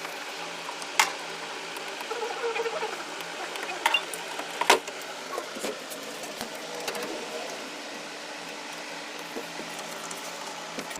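Air cooler's fan motor running with a steady hum, with a few sharp knocks about one second, four seconds and just under five seconds in.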